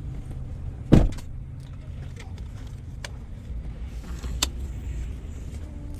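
Steady low rumble of a vehicle, with a loud thump about a second in and a sharp click a little after four seconds.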